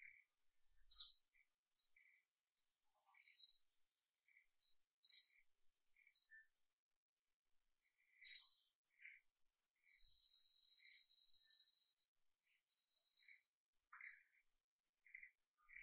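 Small birds chirping in short, high-pitched notes every second or so, with fainter lower chirps between them. A thin buzzy trill lasts about a second and a half just past the middle.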